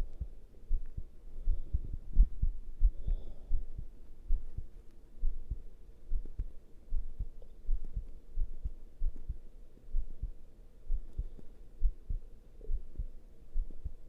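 A man's heartbeat pounding: deep, regular thumps at roughly one and a half beats a second.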